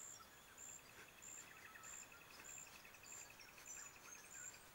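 Faint night-time insect chorus: a short, high chirp repeats about every 0.6 seconds, and about halfway in a faster, lower pulsing trill joins it.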